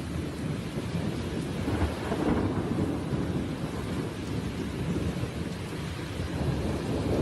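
Thunderstorm downpour: heavy rain with a steady low rumble.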